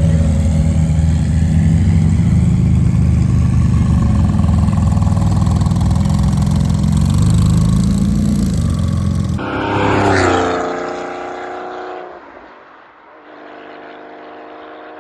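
Porsche engines: a deep, loud engine note holding steady for about nine seconds, rising slightly near its end. Then a car sweeps past with a falling pitch, and a quieter, steady engine note follows.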